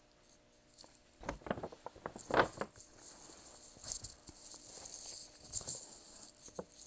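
Fabric rustling and crinkling as a beige trench coat is lifted out of a cardboard gift box and handled, with a cluster of louder crackles about one to two and a half seconds in.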